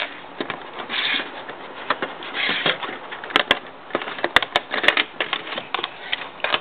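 Plastic Lego Technic pieces clicking and rattling as they are handled and fitted together, a quick irregular run of sharp clicks with short stretches of rubbing and scraping.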